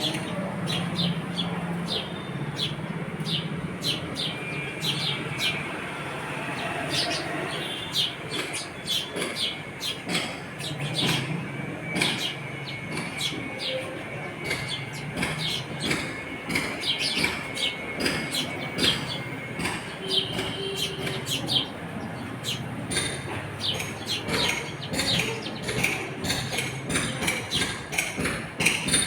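House sparrows chirping: many short, sharp chirps in quick, irregular succession, with several birds calling at once.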